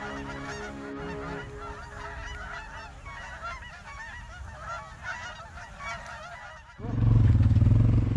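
A large flock of Canada geese honking overhead, many calls overlapping. Near the end the honking cuts off suddenly and a loud, steady low rumble takes over.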